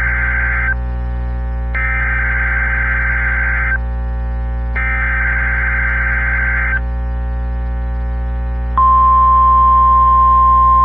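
NOAA Weather Radio EAS test broadcast. The tail of one SAME digital header burst and two more warbling, modem-like data bursts, each about two seconds with a second's pause between. About nine seconds in, the steady, louder 1050 Hz warning alarm tone begins, with a constant low electrical hum underneath.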